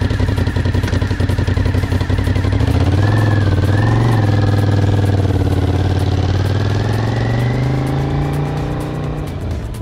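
Motorcycle engine idling, then pulling away about three seconds in and accelerating, its sound growing fainter near the end as the bike rides off.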